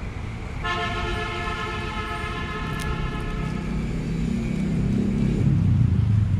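A vehicle horn sounds one long, steady blast of about three seconds, followed by the low rumble of a motor vehicle that grows louder toward the end.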